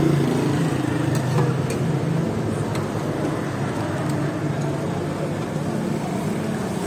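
A steady low rumble, with a few faint clicks and scrapes of a steel scraper working ice cream on a chilled metal pan.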